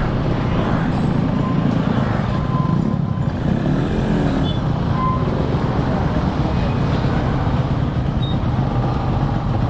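Yamaha RX-King's two-stroke single-cylinder engine running steadily as the motorcycle is ridden slowly along a road, with road and traffic noise around it.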